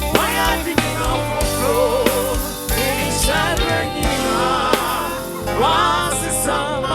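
Gospel song: a singer's melody with wide vibrato over a band's steady, heavy bass.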